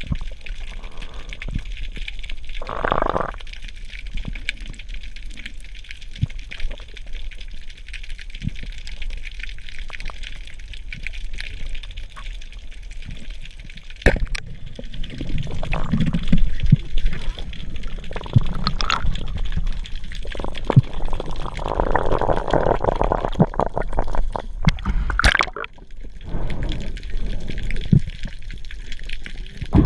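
Water sloshing and bubbling, steady throughout and busier in the second half, with a few sharp knocks.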